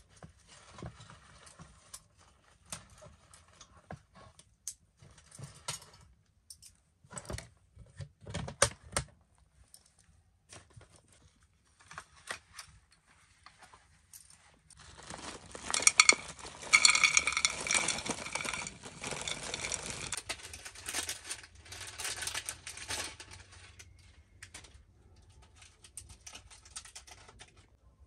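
Scattered clinks and knocks of small things being handled, then about five seconds of a louder, denser rustling clatter starting about halfway through.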